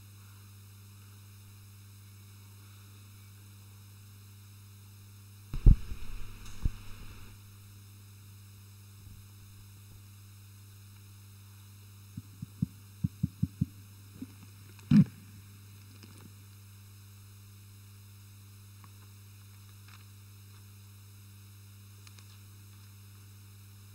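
Steady electrical hum from a microphone and sound system, broken by a cluster of low thumps, then a quick run of about seven knocks and one loud thump, typical of a microphone being handled and bumped.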